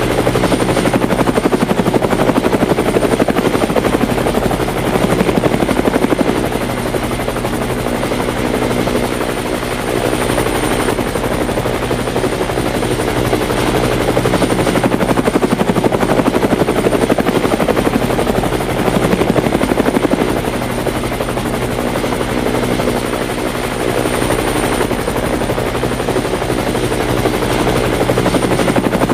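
Helicopter in flight: a steady, fast rotor chop over a constant engine drone.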